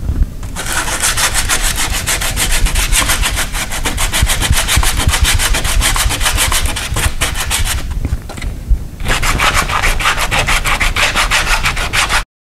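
Hand sanding of a painted steel door with sandpaper on a sanding block: quick back-and-forth scraping strokes, taking the paint down to bare metal. The strokes stop for about a second some eight seconds in, then start again and cut off suddenly just before the end.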